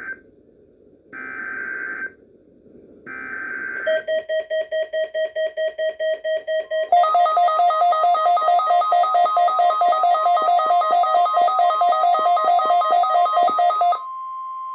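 Emergency Alert System test alert: short bursts of warbling digital header data, then an electronic attention tone pulsing about four times a second. About seven seconds in, a second, higher pulsing tone joins it and the sound gets louder. In the last second a single steady tone is left.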